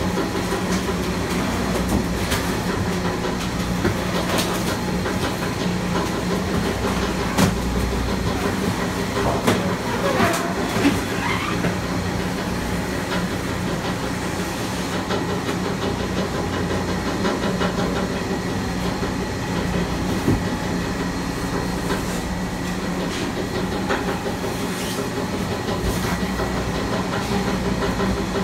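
Sani-Tech 20 HP auger compactor running steadily with a constant hum while its auger screw draws in and crushes cardboard, with irregular cracks and creaks. About ten seconds in there is a brief rising squeal.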